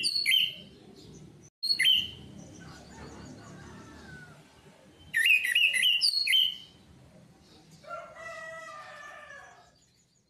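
Orange-headed thrush singing: two loud bursts of quick, high whistled notes, at the start and again around the middle, with a short phrase in between. A lower, drawn-out call follows near the end.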